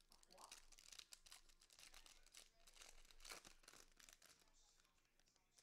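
Faint crinkling and tearing of a trading-card pack's plastic wrapper as gloved hands open and handle it, in many small irregular crackles.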